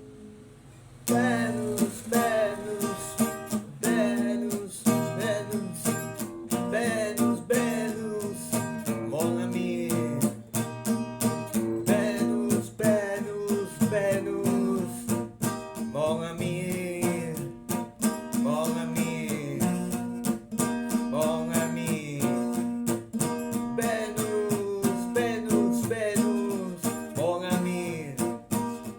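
Music: a guitar-led song with plucked and strummed strings in a steady rhythm, starting up again after a short break about a second in. Gliding melody lines run over the guitar.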